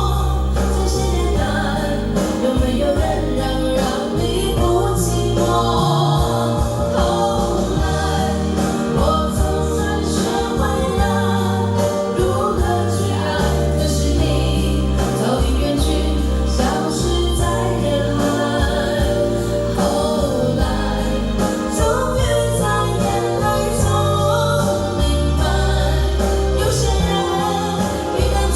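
A song with singing over a full backing track and a heavy, stepping bass line, played loud through a karaoke room's sound system.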